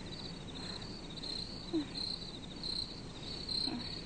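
Cricket chirping: short high-pitched chirps repeating a little more than twice a second.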